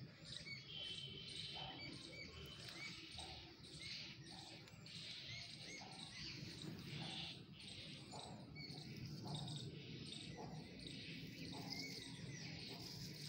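Faint outdoor ambience: insects chirping in a steady, repeating pattern, with occasional bird calls.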